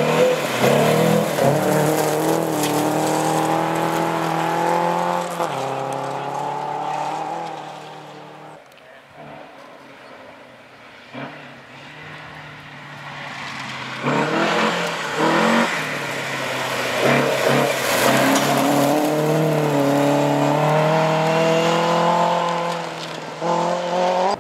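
Two classic rally cars at full throttle on a gravel stage. The first, a Saab 96, accelerates hard past with its engine note climbing, then fades away after about eight seconds. From about fourteen seconds in, a second car's engine builds up loud as it approaches.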